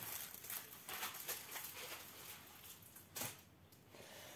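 Faint, scattered rustling and crinkling of small plastic bags of diamond-painting rhinestones being handled, with one louder rustle about three seconds in.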